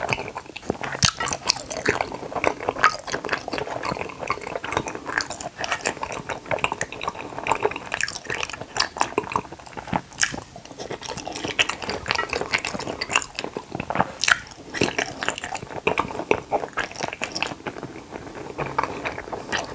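Close-miked chewing of juice-filled Kororo gummy jellies: a dense run of quick wet, squishy clicks and crackles.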